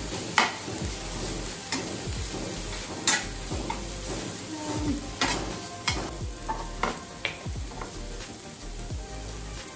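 Food sizzling in a frying pan while being stirred and sautéed, with irregular sharp scrapes and knocks of the utensil against the pan.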